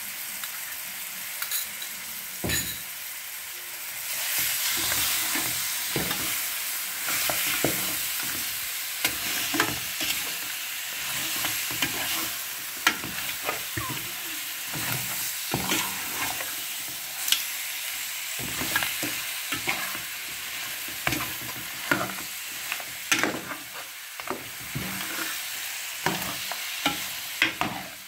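Lamb pieces frying and sizzling in oil and spice masala in an aluminium pot, stirred with a metal spoon that scrapes and clinks against the pot many times. The sizzling grows louder about four seconds in, as the stirred meat turns over into the hot oil.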